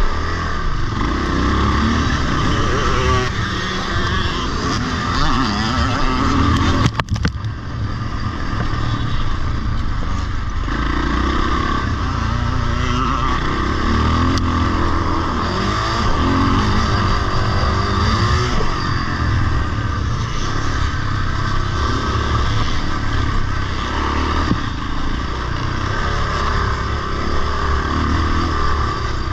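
Vintage motocross bike's engine running hard and revving up and down as it is ridden over a dirt track and up a steep hill, heard close from the bike itself. The engine sound drops briefly about seven seconds in.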